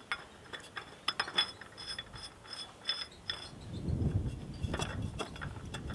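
Scattered light metal clicks and clinks, each with a brief ring, as the 1946 Farmall M's steel oil filter canister is turned and seated by hand against its gasket; a low rumble of handling comes in around four seconds in.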